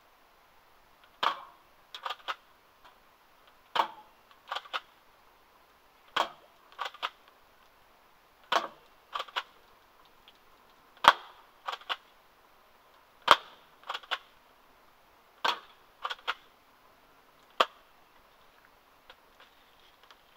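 Spring airsoft pump-action shotgun, a Mossberg M590 replica, fired eight times at a steady pace of about one shot every two and a half seconds. Each shot is a sharp crack, and after each of the first seven come two quick, quieter clicks of the pump being racked back and forward to cock the next shot.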